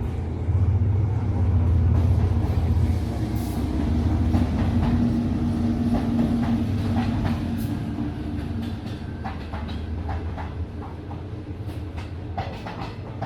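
A train passing through a station without stopping. A low engine rumble is loudest in the first few seconds, then fades as the cars roll by, with a string of wheel clicks and knocks over the rail joints in the second half.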